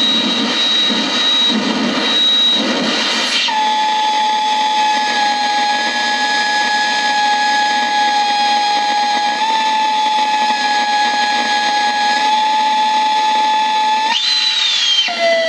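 Electronic noise from a handmade effects pedal played through a Vox guitar amp. About three seconds of pulsing, hissy noise, then it settles into a steady high whistling tone held for about ten seconds over hiss. Near the end the tone swoops up and then drops to a lower tone that slowly sinks.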